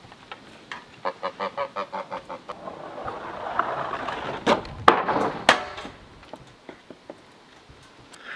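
A chimney brick sliding down a wooden plank on the roof: a quick chattering run of about five pulses a second, then a growing scraping rush, ending in three hard knocks as it lands.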